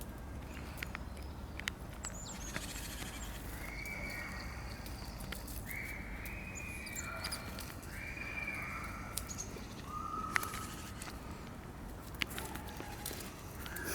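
A series of clear, held whistles, each about half a second to a second long, at several pitches that step lower toward the end, with scattered sharp clicks in between.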